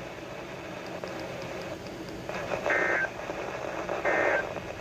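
Emergency Alert System end-of-message data bursts: two short, buzzy two-tone digital bursts, the first about two and a half seconds in and the second near the end, over steady radio hiss. They mark the close of the severe thunderstorm warning.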